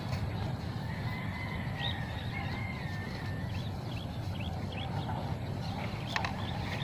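A cow tearing and chewing cut napier grass over a steady low rumble, with faint bird chirps and a thin wavering whistle in the middle. A single sharp click comes near the end.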